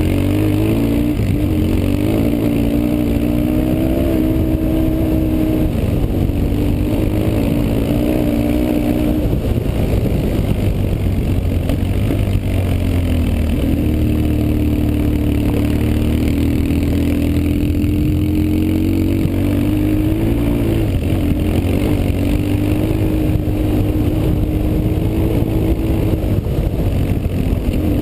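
BMW R 1150 GS's air-cooled boxer twin engine running under an on-board camera on a dirt track, its pitch rising and falling with the throttle and dropping back for a few seconds midway, over steady wind and road noise.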